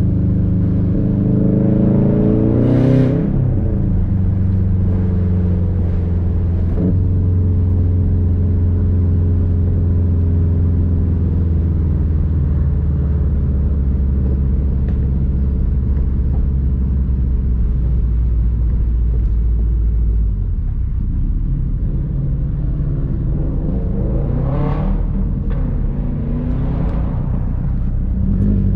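Subaru WRX STI's turbocharged flat-four, with a rumble exhaust and an external wastegate, pulling up through the revs and shifting about three seconds in. It then cruises at a steady drone, eases off, and accelerates hard twice near the end.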